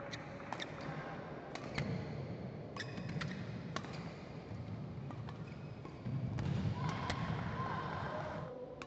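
Badminton rally: rackets striking the shuttlecock in sharp hits, irregularly spaced about a second apart, with shoes squeaking on the court mat. The hits stop partway through, followed by a louder stretch of short squeaky tones.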